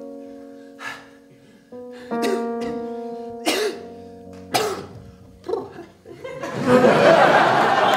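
Live keyboard accompaniment playing sustained chords that change every second or so, broken by a few short, sharp breathy bursts. About six seconds in, audience laughter swells and becomes the loudest sound.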